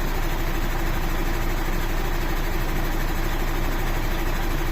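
Mercedes-Benz Actros 2541 truck's V6 diesel engine idling steadily.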